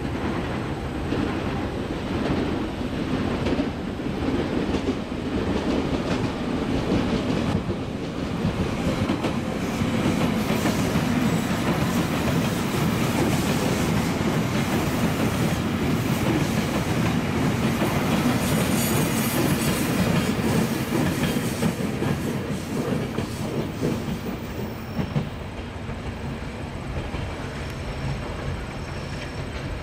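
A train running on the rails with wheels clattering over the rail joints. It builds over the first several seconds, is loudest through the middle and eases off toward the end.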